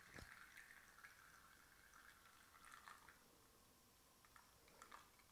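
Faint trickle of espresso streaming from a lever machine's portafilter into a cup, fading after about three seconds, with a few small ticks.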